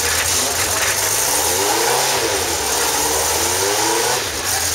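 Ariel Atom 500's V8 engine running while stationary, its pitch rising and falling as it is revved a couple of times through the middle.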